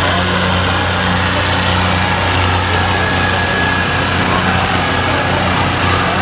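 Diesel engines of a John Deere 5050D and an Arjun 605 tractor running hard under load as the two pull against each other in a tug-of-war, a steady low drone.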